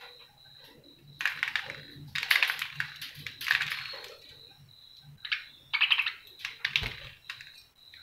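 Budgerigars feeding at a seed pot close by: six short bursts of rapid clicking and scratching.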